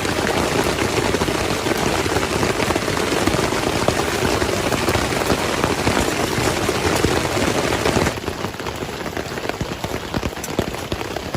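Steady rain falling on a surface, a dense hiss of drops, becoming a little quieter about eight seconds in.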